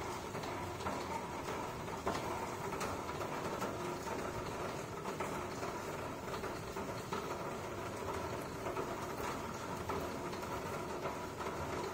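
A steady mechanical hum with a few faint clicks.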